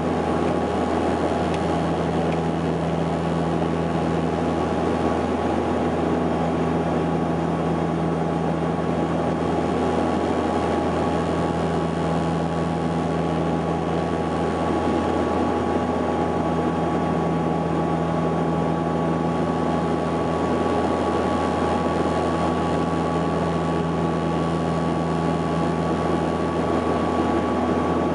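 Saab 340B's General Electric CT7 turboprop engines and propellers droning steadily in cruise, heard inside the passenger cabin: a constant low hum with a few steady higher tones over an even rush of air noise.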